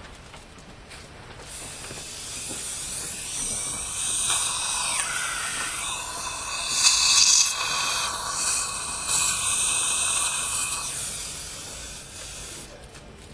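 A long rushing hiss that builds over several seconds, holds, and dies away near the end, with a faint tone sliding downward about four to five seconds in.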